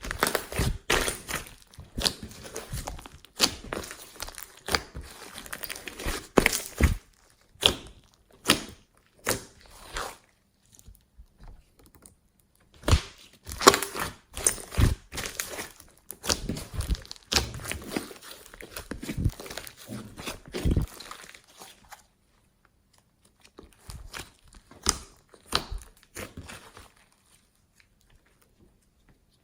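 Slime being squished, stretched and folded by hand: an irregular run of sticky pops, squelches and crackles. It pauses briefly a few times.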